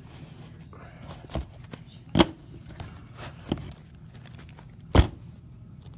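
Trading card packs and box being handled, giving four sharp taps and knocks. The loudest come about two seconds in and about five seconds in.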